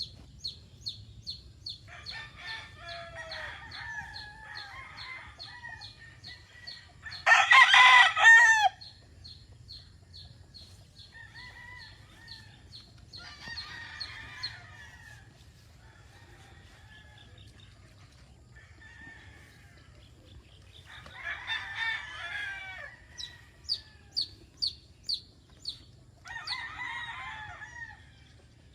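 Several roosters crowing one after another, five crows in all; the loudest and longest comes about seven seconds in. Between the crows there are hen calls and a quick run of high chirps, about three or four a second, for the first ten seconds or so.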